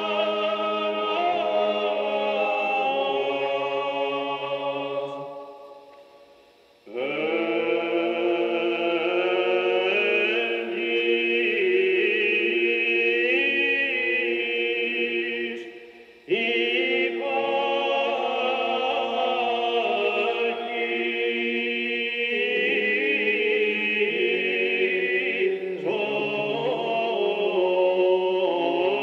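Byzantine chant: a solo cantor sings a slow, ornamented hymn melody in the grave mode (ēchos varys) over a low held drone. The singing pauses twice between phrases, first fading almost to silence about five seconds in, then breaking off briefly around sixteen seconds in.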